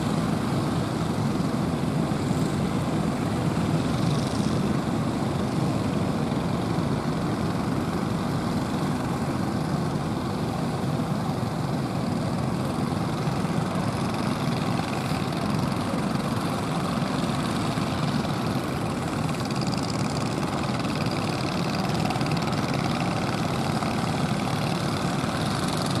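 Engines of outrigger fishing boats running steadily, blended with the steady rush of waves.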